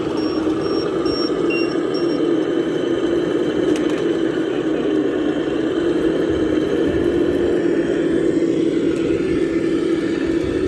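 Radio-controlled model truck's drive running steadily under load with a constant hum. A high, evenly spaced beeping sounds during the first two seconds, then stops.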